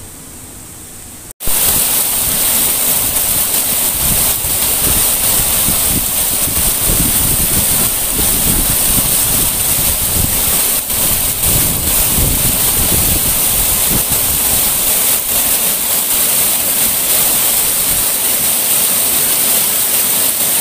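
Water rushing and splashing over a rock in fast-flowing shallow water, close to the microphone: a loud, steady rushing that cuts in suddenly about a second in.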